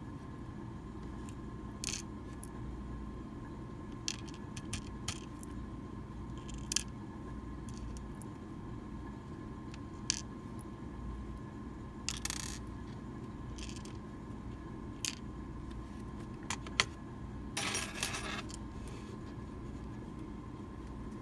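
Small metal lock parts of a gutted Medeco lock (the steel plug and its pins) clicking and tapping as they are handled and set down in a parts tray. There are scattered single clicks, a brief rattle about twelve seconds in and a longer rattle about eighteen seconds in, over a steady hum.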